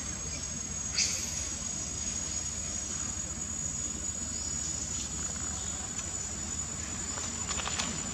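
Insects droning steadily as one continuous high-pitched tone, with a sharp click about a second in.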